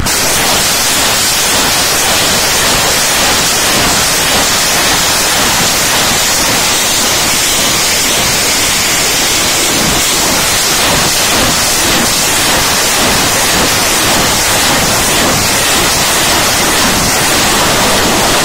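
A battery of truck-mounted multiple rocket launchers firing a salvo: a loud, continuous rushing noise of the rockets launching that starts abruptly and holds steady.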